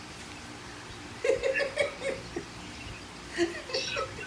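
Two short bursts of laughter, quick repeated 'ha' pulses, about a second in and again near the end.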